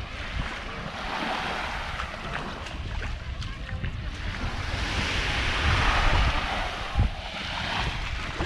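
Small Gulf surf washing up on a sandy beach, one wave swelling to a louder wash about five seconds in, with wind buffeting the microphone and a brief thump near the end.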